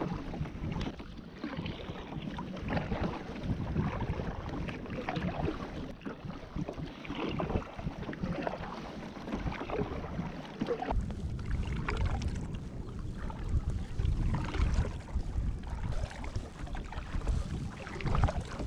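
Double-bladed kayak paddle strokes: the blades dip and splash into the water on alternate sides, with water running off them. Wind rumbles on the microphone, heavier from about eleven seconds in.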